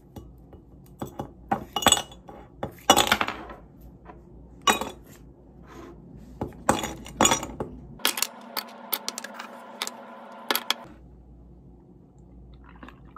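Ice cubes knocked out of an ice tray into a glass mug, a string of sharp clinks and knocks against the glass, with a quicker run of clinks about eight seconds in.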